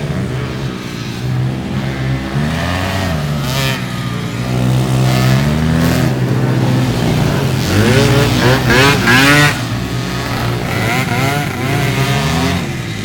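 Racing ATV engines revving up and down, more than one engine overlapping. The loudest run of rising revs comes about eight to nine seconds in.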